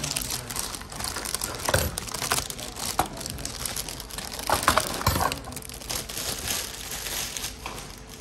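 Plastic packaging wrap crinkling and a cardboard box being handled, irregular rustling with a few sharper knocks, loudest about halfway through.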